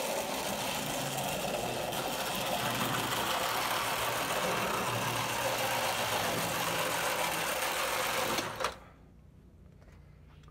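Marx toy-train motor with double-reduction gears running, its metal wheels rolling on the track: a steady whirring rattle that cuts off suddenly about eight and a half seconds in.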